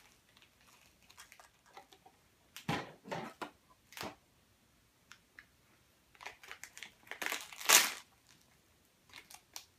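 Silver foil blind-bag wrapper crinkling in irregular bursts as it is handled and pulled open, with short quiet gaps between; the loudest crinkle comes about three-quarters of the way through.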